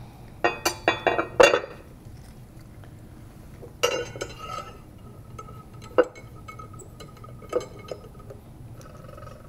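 Metal clinks and clanks as a clamp is fitted and tightened onto a steel ring-stand rod. A quick cluster of sharp clinks comes in the first second and a half. A louder clank about four seconds in rings on briefly, and single clicks follow around six and seven and a half seconds.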